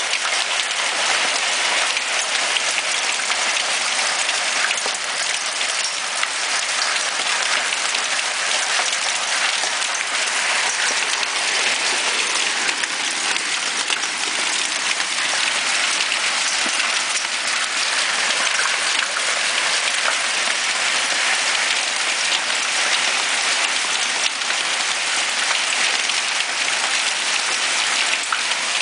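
Hail falling on a wooden deck and a glass-topped patio table: a steady, dense patter of countless small hits that blend together.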